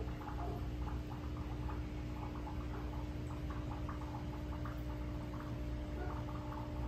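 Aquarium sponge filter bubbling: a continuous patter of small air bubbles rising and breaking at the water surface, over a steady low hum.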